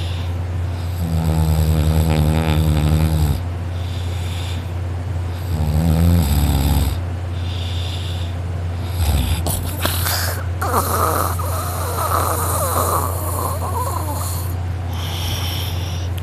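A man snoring hard in deep sleep: a long, loud snore about a second in and a shorter one around six seconds, with softer breathing noise between and after. A steady low hum runs underneath.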